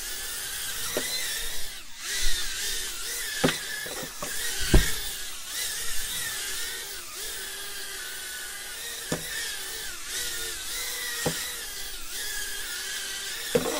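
Holy Stone HS210 mini quadcopter hovering and drifting about, its four small motors and propellers giving a steady high whine whose pitch wavers as the motors keep adjusting. A few sharp clicks are heard along the way.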